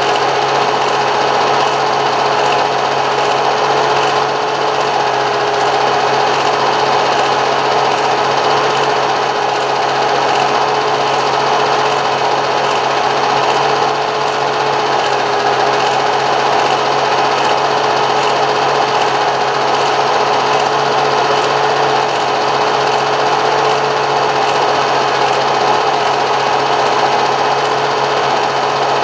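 Steady mechanical whirring with a constant humming tone and a low hum beneath it.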